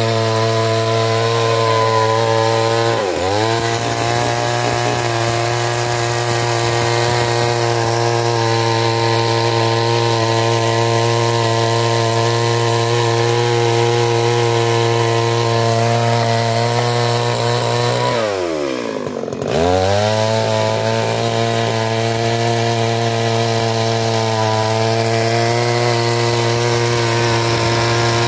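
Stihl MS 382 two-stroke chainsaw running at high revs while cutting through a log, a steady high engine note. Its pitch dips briefly about three seconds in, and about two-thirds of the way through it drops sharply to a low note and climbs straight back up to full revs.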